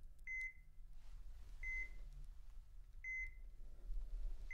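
Hospital patient monitor beeping: short, high, evenly spaced beeps about a second and a half apart, four of them, over a faint low hum.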